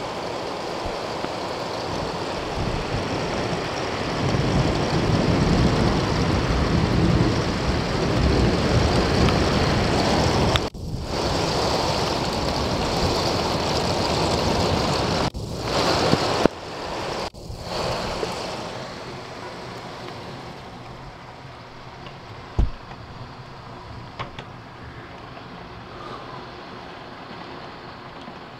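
Storm wind and heavy rain: a loud, steady rushing that swells in gusts, then drops and turns duller about nineteen seconds in, leaving a quieter steady hiss. A single short thump sounds about twenty-two seconds in.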